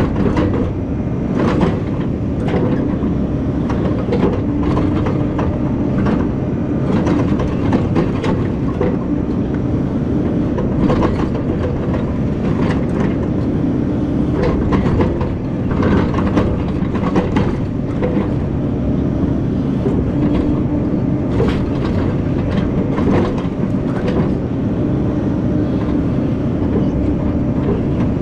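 A Takeuchi TB2150 excavator's diesel engine running steadily under load while it digs and loads a dump truck, with frequent irregular knocks and clunks from the hydraulics, bucket and dirt.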